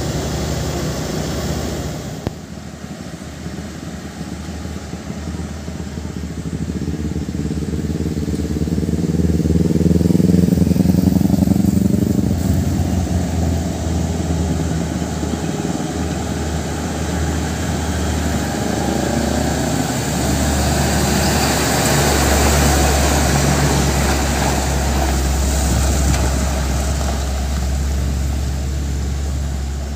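Heavy truck's diesel engine running as the long truck drives slowly past, loudest with a deep steady hum during the last third. About ten seconds in, another engine rises and falls in pitch as it goes by.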